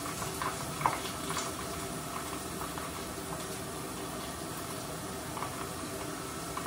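Frying oil sizzling steadily, with a few faint pops in the first second or two.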